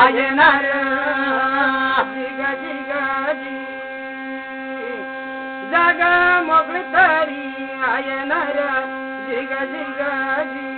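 Thali, a brass plate with an upright stick that is rubbed to give a steady humming drone, under a man's voice singing in long, wavering phrases that come and go.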